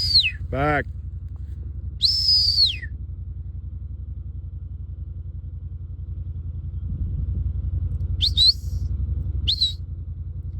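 Shepherd's stock-dog whistle commands: one long whistle that holds high and then falls, then two short rising-and-falling whistles near the end. A steady low rumble runs underneath.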